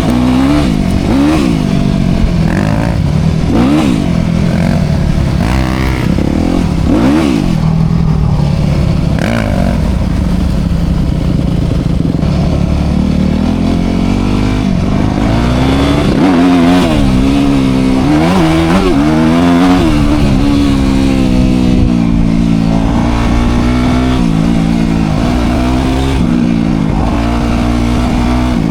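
Dirt bike engine running hard, its pitch rising and falling over and over as the throttle is opened and eased off while riding.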